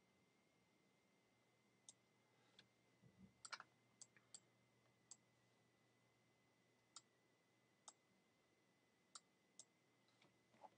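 About a dozen faint computer mouse clicks at irregular intervals, a few bunched together about three and a half seconds in, over near silence with a faint steady high tone.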